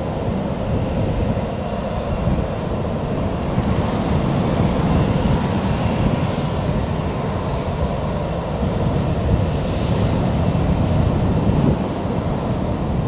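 Wind buffeting the microphone over the low, steady rumble of a Boeing 737-800's CFM56-7B jet engines as it taxis at idle thrust.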